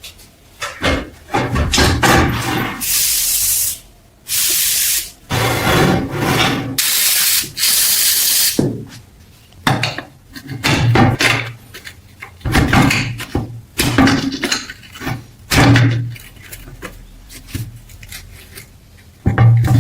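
Workshop handling of small parts: four hissing spray bursts of one to two seconds each, with clicks, knocks and rubbing between them and after.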